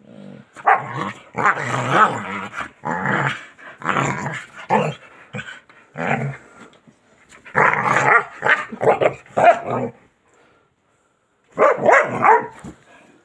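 Dog play-growling with some barks while wrestling with a hand under a blanket: a run of loud bursts, a pause of over a second, then one more burst near the end.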